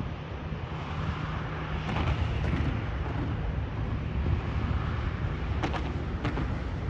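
Boeing 737-800's CFM56-7B jet engines running at taxi power: a steady low rumble with a hiss over it, with a few brief knocks about two seconds in and near the end.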